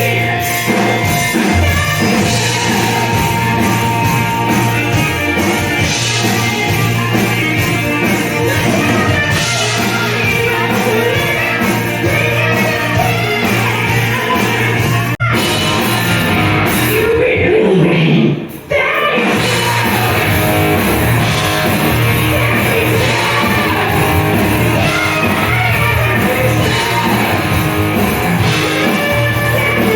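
Rock music with a singer. The sound breaks sharply about halfway through, and there is a short dip a few seconds later before the music carries on.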